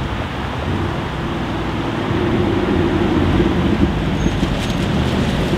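Mercedes-AMG A45 S and Audi RSQ8 engines and exhausts rumbling at low revs as the two cars roll slowly toward the microphone. A steady drone grows louder about two seconds in and peaks a little past the middle.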